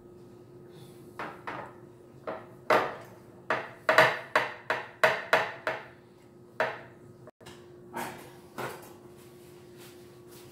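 A glass baking dish knocking against a granite countertop while croissant dough is pressed into it and the dish is shifted. A quick run of sharp knocks, loudest in the middle, is followed by a few more spaced out.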